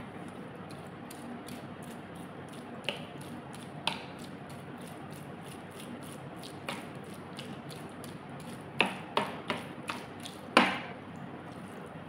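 A fish scaler is dragged in strokes through set agar jelly (gulaman) in a glass baking dish to shred it into strands. Sharp taps come as the tool knocks against the glass: a couple early, then a quick run of them near the end, the last the loudest. A steady faint hiss runs underneath.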